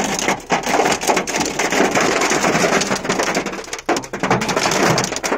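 Hail and heavy rain pelting a car's roof and windscreen, heard from inside the car: a dense, loud patter packed with sharp hits, easing briefly about four seconds in.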